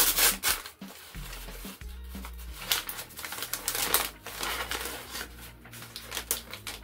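Cardboard box and packing tape being cut with a small knife and torn open, in a string of short scratchy rips and crinkles, over a faint steady low hum.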